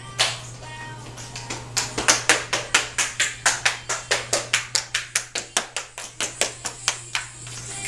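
A toddler's hard-soled shoes tapping and stomping quickly on a hardwood floor, about four sharp taps a second after a short pause near the start, over a steady low hum.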